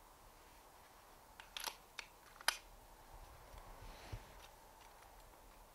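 A few sharp mechanical clicks as an air rifle on a tripod is handled, the loudest about two and a half seconds in, then a low rumble and a dull knock near four seconds as the tripod is gripped.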